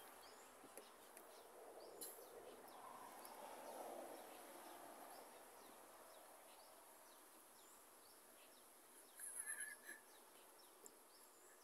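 Near silence: faint outdoor ambience with many small, high chirps and a brief louder chirp about nine seconds in.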